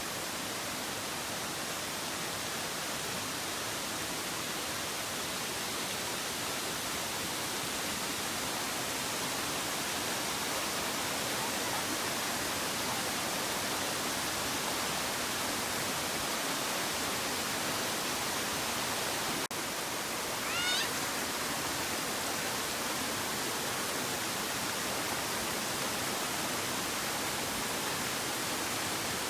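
Waterfall: the steady rush of falling water. About twenty seconds in there is a brief high wavering call.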